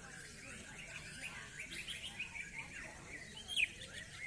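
Male cucak ijo (green leafbird) singing agitatedly: a quick, varied string of chirps, trills and whistled glides, with a louder falling whistle about three and a half seconds in.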